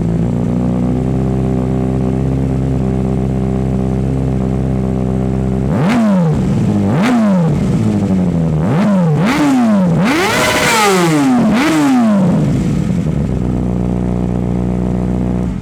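2019 Kawasaki ZX6R's 636 cc inline-four idling steadily, then revved in a series of about six quick throttle blips, each rev rising sharply and dropping back. One longer, higher rev comes near the middle before the engine settles back to idle near the end.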